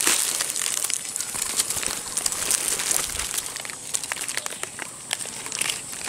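Dry fallen leaves and twigs rustling and crackling as a hand reaches into the leaf litter to pick up a small bird, a dense run of small crackles, louder at first.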